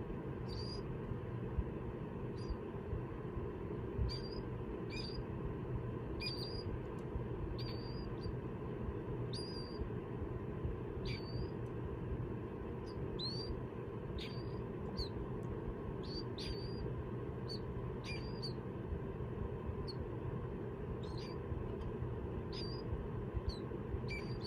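Killdeer chicks peeping: short, high, thin calls, some sliding sharply upward, repeated at irregular intervals about once a second over a steady low background noise.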